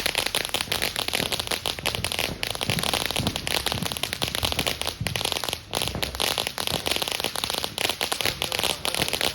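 Firework fountain burning with a dense, continuous crackle of many tiny rapid pops.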